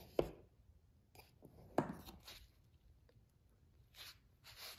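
Hardtop roof latch worked by hand: two sharp clicks about a second and a half apart, the second the louder, then light rustling of handling.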